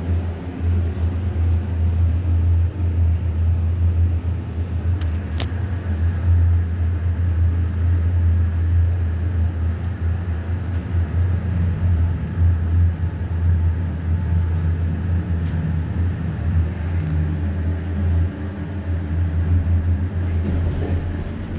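Otis hydraulic elevator running, heard from inside the car: a steady low hum throughout, with a single brief click about five seconds in.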